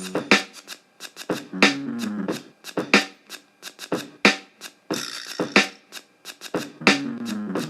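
Background music with a steady beat: sharp, regularly spaced drum hits over a repeating low melodic phrase.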